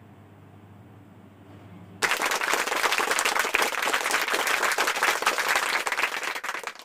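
Crowd applause, a dense patter of many hands clapping, that starts suddenly about two seconds in and cuts off abruptly at the end. Before it there is only a faint low hum.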